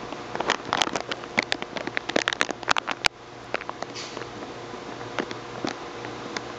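Makgeolli fermenting in a fermentation tank: gas bubbles popping and crackling at the surface with a patter like rain, dense for about three seconds and then scattered pops, over a steady hum.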